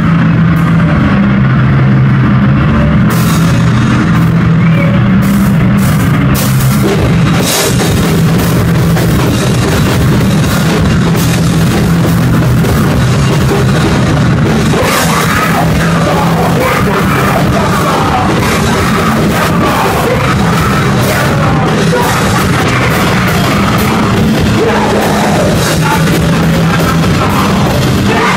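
Live band playing loud, heavy rock with drums and cymbals.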